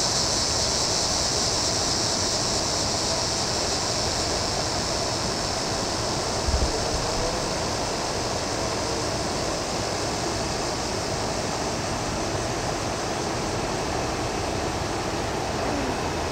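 Summer evening insect chorus, a steady high-pitched trilling, over a constant broad background rush. A brief low thump comes about six and a half seconds in.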